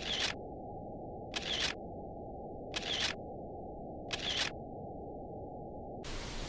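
Camera shutter clicking four times, about 1.4 s apart, as a series of photos is taken, over a steady low hiss.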